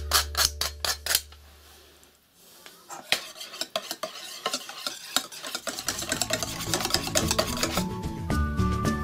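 Wire whisk stirring béchamel sauce in a stainless steel pot, the wires scraping and clicking against the metal in quick, irregular strokes. The stirring starts a couple of seconds in.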